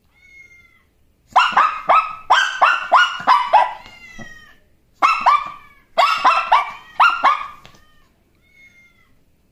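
Small dog barks: two quick runs of high, sharp yaps, about three a second, with a short pause between them. A faint thin high whine comes just before the first run and again near the end.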